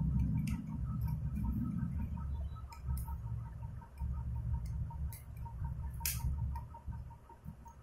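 Fast, even ticking, about four to five ticks a second, over a low rumble, with a few sharper clicks here and there.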